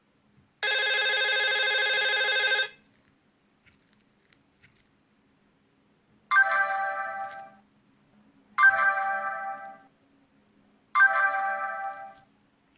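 Nokia C6-00 phone ringtones playing from its loudspeaker. First a steady, buzzy electronic tone lasts about two seconds. After a pause a different chiming tone sounds three times at even spacing, each strike fading over about a second.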